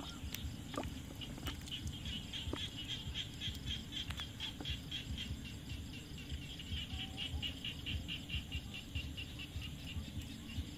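A night animal calling in a steady high-pitched pulsing rhythm, about four pulses a second, over a low rumble of water and handling.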